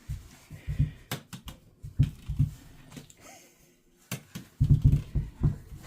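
Scattered soft thumps and a few light clicking taps in a small room, coming in irregular clusters with short lulls between.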